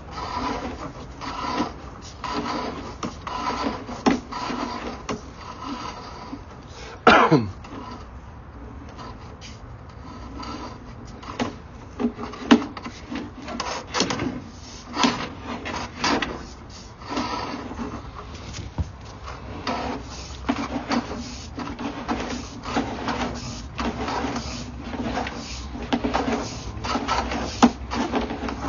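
Drain inspection camera being fed along corrugated drain pipe: the push rod and reel give irregular clicks and rattles over a steady hum, with a sharp falling squeak about seven seconds in.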